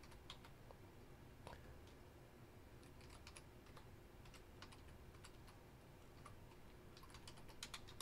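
Faint typing on a computer keyboard: scattered key clicks, with a quicker run of keystrokes near the end.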